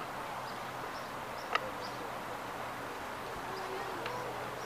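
Outdoor ambience: a steady background hiss with faint distant voices near the end and one sharp click about a second and a half in.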